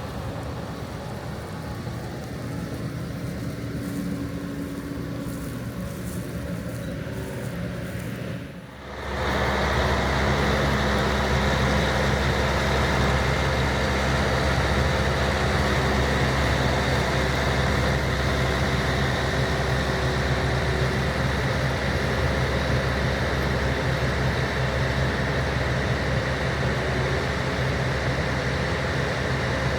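Combine harvester engine and machinery running steadily. About nine seconds in, the sound cuts abruptly to a louder, steadier drone with a deep hum.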